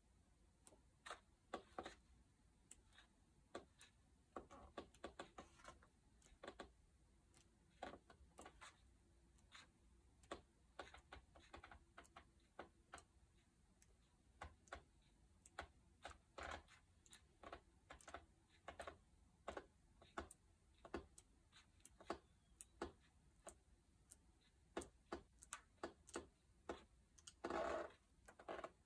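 Paper pages of a large coffee table art book being turned and flicked one after another: irregular soft flips and taps, with a longer brushing rustle of a page sweeping over near the end.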